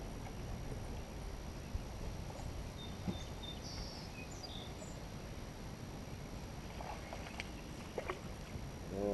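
Quiet open-air ambience on a fishing boat on a river: a steady low rumble with faint high chirps about three to four seconds in and a few light knocks near the end.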